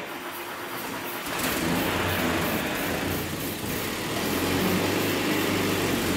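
1963 Land Rover Series 2A engine starting and running, getting louder about a second and a half in, on an engine being brought back to life after years of sitting, with an aerosol sprayed at the engine to help it fire.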